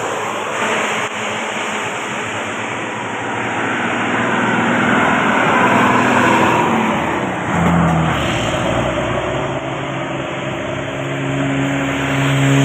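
Heavy road vehicle, most likely a bus, driving by with engine and road noise that swells and fades; a steady low engine note comes up near the end.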